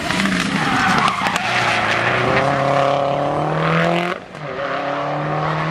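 Subaru Impreza rally car's flat-four boxer engine pulling hard, its pitch climbing steadily; just after four seconds it drops off briefly, as on a gear change or lift, then climbs again.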